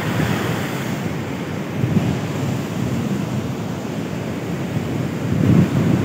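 Koel river in flood rushing over the rock at the Sugga Bandh waterfall, a steady rush of water. Wind buffets the microphone, gusting more strongly near the end.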